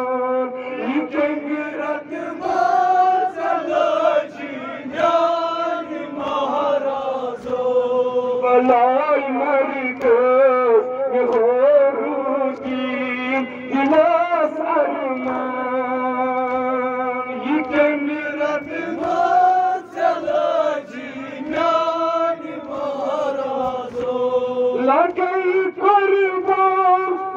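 A man singing a noha, a Muharram mourning lament, into a handheld microphone: long held notes with wavering ornaments, broken by short breaths between phrases.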